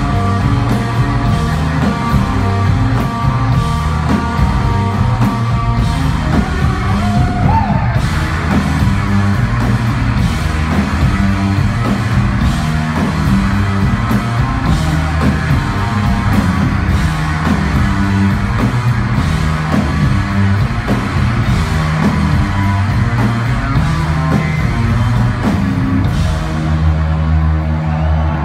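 Live rock band playing loud, driving garage-psych rock with two drum kits, electric guitar and bass, heard from the audience floor.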